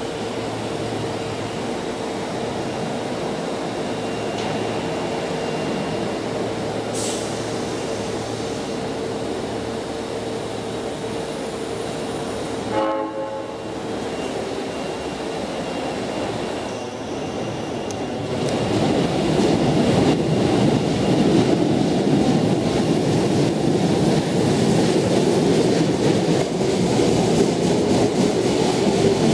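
Osaka subway Chuo Line electric trains. First a steady hum from a train standing at the platform, then a short horn about halfway through. From about two-thirds of the way in comes the louder, steady running noise of a train moving along the track.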